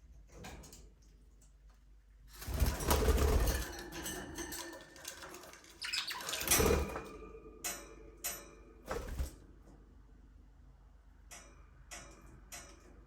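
Pet budgerigars in a cage: two loud flurries of fluttering and scuffling, about two and a half seconds in and again around six seconds, then a few short sharp chirps spread through the rest.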